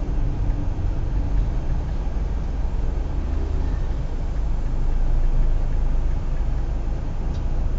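Steady low engine rumble and street traffic noise picked up by a car dashcam's built-in microphone.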